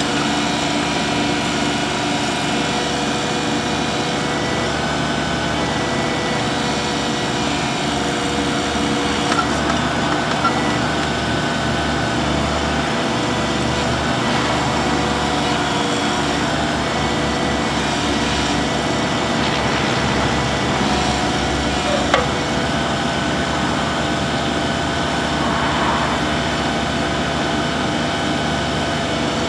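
Bobcat 323J compact excavator's Kubota D722 three-cylinder diesel engine running steadily, with a few brief knocks from the machine.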